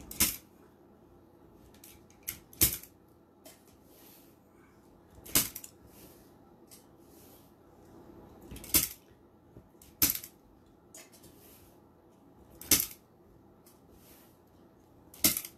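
Zip tie gun snapping off plastic zip tie tails: about seven sharp cuts, one to three seconds apart.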